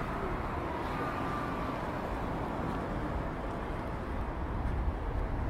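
City street ambience: a steady low rumble of road traffic, heavier from about two seconds in.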